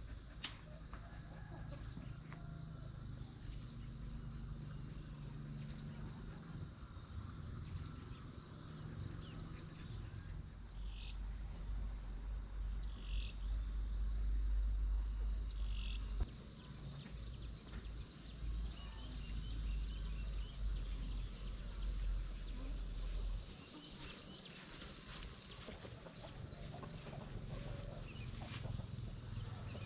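Steady high-pitched insect drone of rural fields, with short chirps repeating about every two seconds during the first ten seconds and a few brief falling bird-like calls after that. A low rumble runs underneath.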